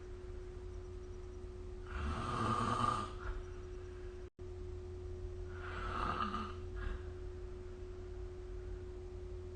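A sleeping person snoring: two snores, about 2 s and 6 s in, over a steady low hum. The sound cuts out to silence for an instant just past four seconds in.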